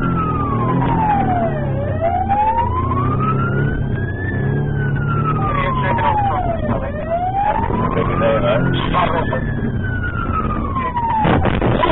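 Police car's wail siren sweeping slowly up and down, about one rise and fall every five seconds, over the car's engine rumble, heard from inside the car. Near the end there is a sudden clatter and the siren breaks off.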